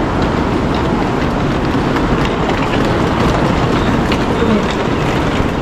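Steady, loud noise of a high-speed rail station platform beside a train, with faint voices and footsteps of passengers boarding.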